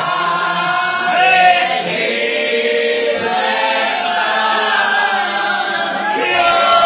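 A church congregation singing a hymn together, many voices at once.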